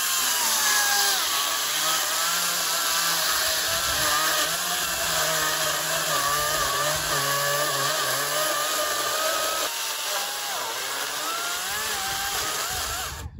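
Makita DUC405Z 36-volt cordless electric chainsaw cutting into a tree stump. Its motor whine wavers in pitch as the chain loads up in the wood, then cuts off suddenly near the end.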